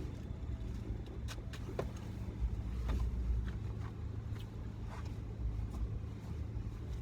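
Low, steady rumble of a Kia Optima heard from inside its cabin, with a few faint scattered clicks.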